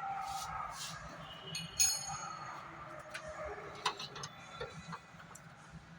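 Light metallic clinks and scattered clicks of hand tools and parts being handled, with one ringing clink about two seconds in.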